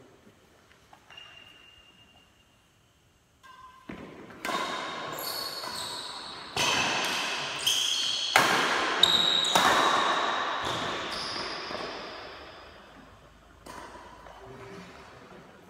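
Badminton rally: rackets striking the shuttlecock, a string of sharp hits starting about four seconds in, roughly a second apart and loudest in the middle, each echoing in a large metal-walled hall.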